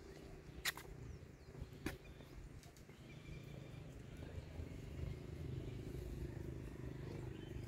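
Two sharp clicks early on, then a low, steady engine-like hum that slowly grows louder, like a motor vehicle approaching.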